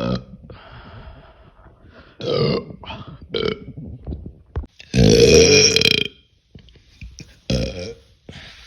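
A young woman belching repeatedly: a few short burps, then one long, loud burp of about a second just past halfway, and a short one near the end.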